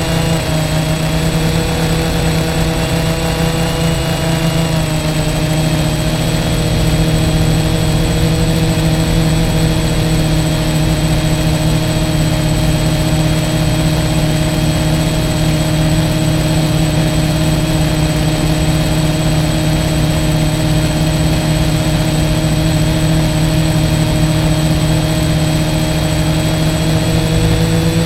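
F450 quadcopter's electric motors and propellers humming steadily at a held throttle over a rushing noise. The pitch dips slightly a few seconds in and rises near the end.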